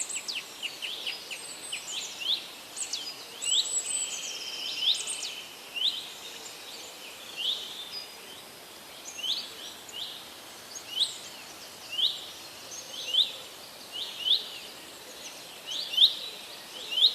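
Forest birds chirping: several birds overlapping at first, then one bird repeating a short, quick rising chirp about once a second. Behind them runs a soft, steady hiss of a running stream.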